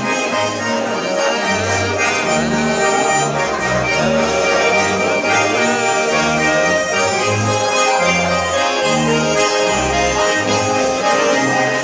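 Schwyzerörgeli (Swiss diatonic button accordions) playing a Swiss folk tune together, over a plucked double bass line that moves about two notes a second.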